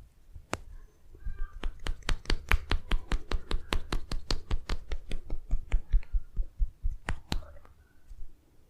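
Hands slapping in a fast run during a head and neck massage, about six sharp slaps a second for some four seconds, with a few single slaps before and after.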